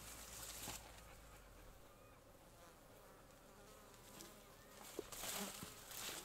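A flying insect buzzing faintly, with a click and a short burst of rustling noise about five seconds in.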